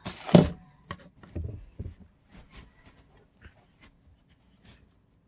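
Kitchen items being handled and fitted into a storage box: a loud knock at the start, then light clicks, taps and rustles that stop just under a second before the end.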